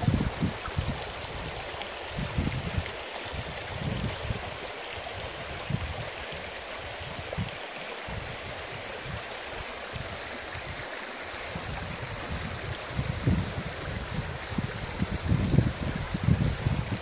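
Shallow stream running over a stony bed: a steady rushing and babbling of water, with irregular low rumbling buffets on the microphone that grow heavier in the last few seconds.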